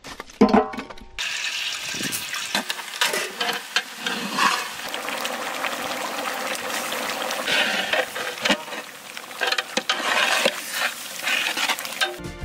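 Food cooking in a large pot over a wood fire: a steady sizzling hiss with many small crackles and clicks. It starts suddenly about a second in, after a few knocks.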